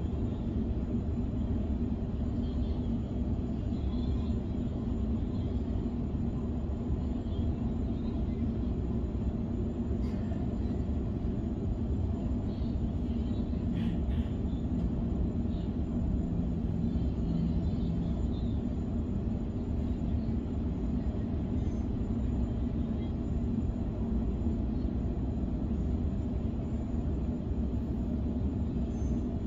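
Steady low rumble of an electric suburban train running along the line, heard from inside the carriage, with a low hum underneath and a couple of faint clicks about midway.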